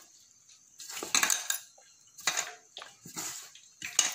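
Hand mixing spice- and flour-coated okra strips in an aluminium bowl: fingers scrape and rustle the wet coating against the metal in four uneven strokes.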